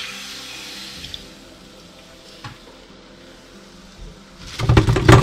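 Hot oil sizzling as a wire skimmer lifts fried mung-bean balls out of the pan, fading within the first second. Then a few faint clicks, and near the end a loud burst of clattering knocks as the loaded skimmer is tipped against the steel strainer pot.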